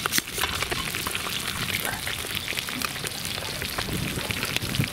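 Small fish deep-frying in hot oil in a cast-iron kazan: a dense, steady crackle and sizzle of bubbling oil, with one sharp click near the start.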